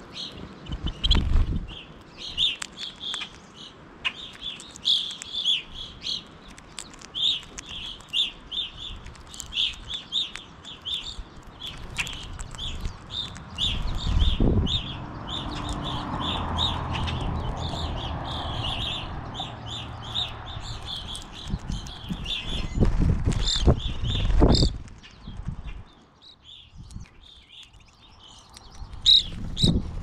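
Finches chirping over and over in short high notes. Low thumps and wing flutters come about a second in, around halfway and again near the end, as birds land on and leave a hand full of seed. The chirping thins out near the end.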